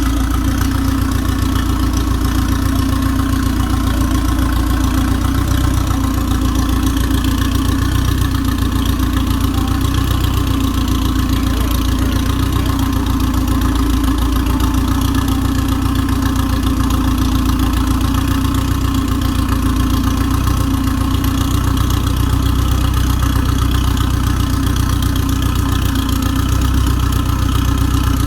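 Subaru boxer engine in a sandrail idling steadily, freshly rebuilt with a new crankshaft and connecting rod.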